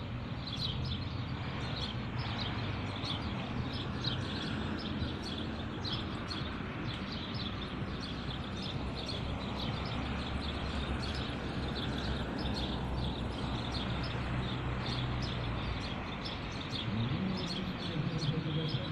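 Outdoor ambience: a steady hum of distant city traffic with small birds chirping again and again throughout.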